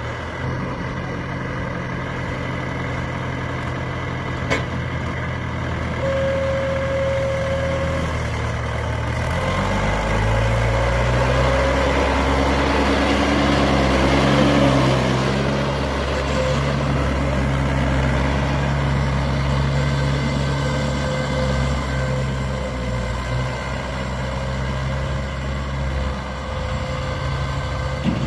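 Heavy diesel vehicle engine running, revving up about ten seconds in and then holding at a higher, steady speed. A short steady tone sounds for about two seconds near six seconds in.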